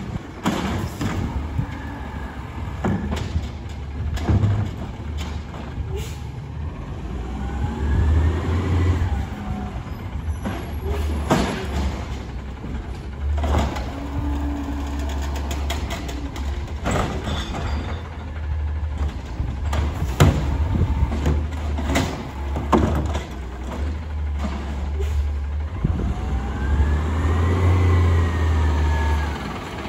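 Peterbilt automated side-loader garbage truck at work: the diesel engine runs with a steady low rumble and revs up and back down twice as the lifting arm cycles. Sharp knocks and short hisses of cart handling and air brakes are scattered through it.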